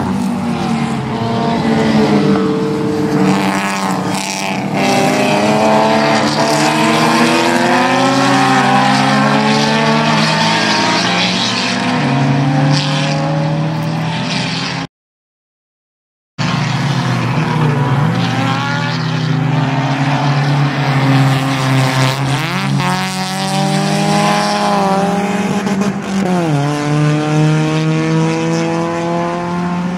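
Several race cars running on a circuit, among them a Hayabusa motorcycle-engined race car, their engines revving up and down in pitch as they brake, shift and accelerate past. The sound cuts out completely for about a second and a half midway.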